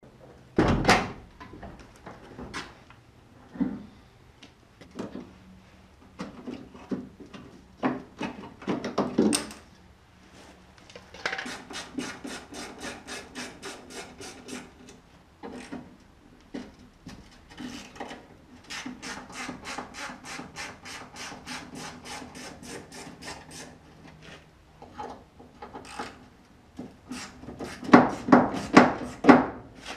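Hand tools working on a 1994 GMC Sierra pickup's door latch: long runs of quick, even clicking or scraping strokes, about five a second, broken by louder knocks and clatter, loudest near the end.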